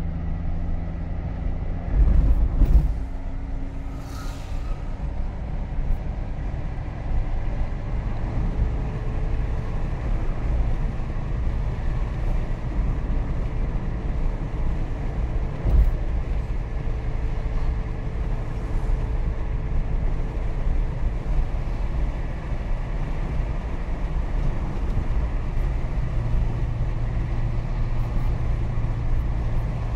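Car driving on a highway, heard from inside the cabin: steady engine hum and tyre and road rumble, with a louder thump a couple of seconds in and a short knock about halfway through.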